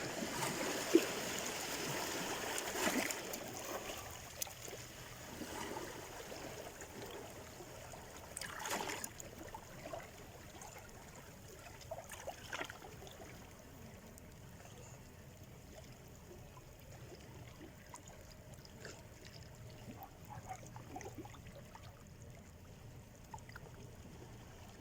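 Gentle sea surf on the shore: a small wave washes in over the first few seconds, then the water drains back with soft trickling, broken by a few brief splashes.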